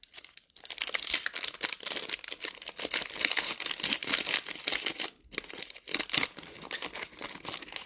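Foil trading-card pack wrapper crinkling and tearing as a pack is ripped open and handled, a dense crackle with short pauses.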